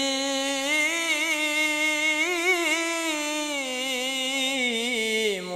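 A man singing a sholawat unaccompanied, drawing out one long note with a wavering, ornamented melisma that falls in pitch and breaks off near the end.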